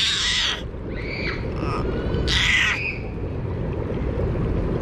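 A toddler's short, breathy, high-pitched squeals, a few times, the loudest about two and a half seconds in, over a steady low rush of water.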